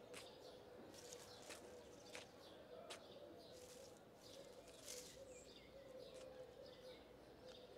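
Faint outdoor ambience: scattered short bird chirps over a faint, steady, wavering low tone.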